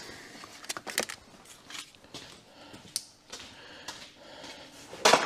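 Handling noise: scattered light clicks and rustles of objects being moved about, with a louder short burst of noise just before the end.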